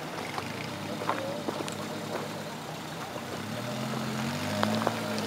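Suzuki Samurai off-roader's engine running, its note rising as it revs up about three and a half seconds in, with scattered sharp clicks and knocks.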